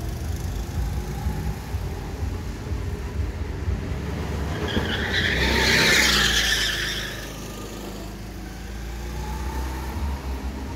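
Go-kart engine approaching, its tyres skidding through the corner with a hissing screech loudest about six seconds in, then fading as the kart drives away. A low engine rumble runs throughout.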